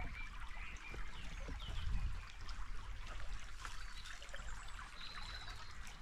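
A small shallow stream trickling steadily, with a few short bird chirps over it.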